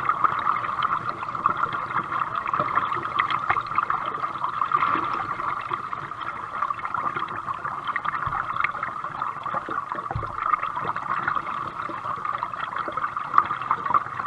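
Water sloshing and gurgling around a kayak as it is paddled, with drips and small splashes from the paddle.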